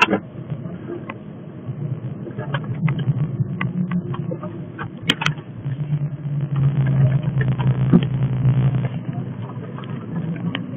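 Car engine and road noise heard from inside the cabin while driving. The engine note grows louder for a few seconds in the second half, as the car turns and pulls away. Two sharp clicks come about five seconds in.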